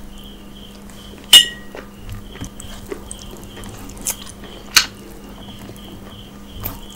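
Close-miked eating sounds: chewing and mouth noises while rice is scooped by hand from a metal plate. A few sharp metallic clinks of the hand against the plate ring briefly, the loudest about a second and a half in and another near five seconds. A faint high chirp repeats about three times a second in the background.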